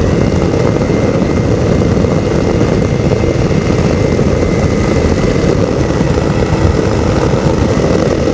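Two-stroke ultralight aircraft engine and propeller running steadily in flight.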